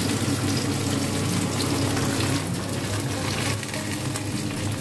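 Slices of steamed radish cake (lobak pudding) frying in hot oil in a wok, a steady sizzle.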